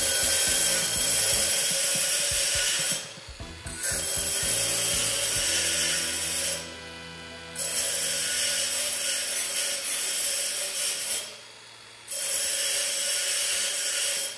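Makita cordless angle grinder's abrasive disc grinding a steel frame, a loud steady grinding whine. The disc comes off the metal briefly three times, about three seconds in, around seven seconds and near eleven and a half seconds, and the grinder spins free before biting again.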